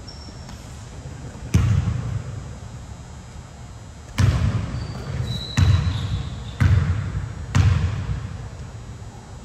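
A basketball bouncing on the court, five times: once about a second and a half in, then four bounces about a second apart from about four seconds in, each ringing out briefly in the hall. A brief high squeak comes in the middle.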